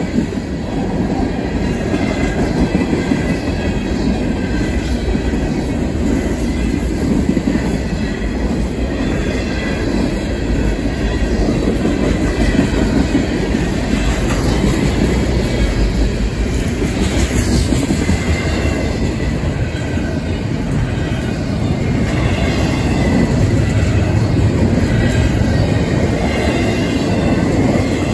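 Intermodal freight train cars rolling steadily past close by: a continuous rumble and clatter of steel wheels on rail.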